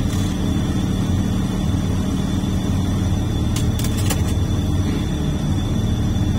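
Komatsu HD465-7R haul truck's diesel engine running steadily, a constant low rumble heard from inside the cab, with a few light clicks about halfway through.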